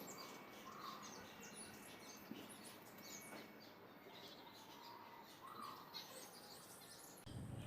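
Faint bird chirping: many short, high chirps overlapping, with a lower call twice.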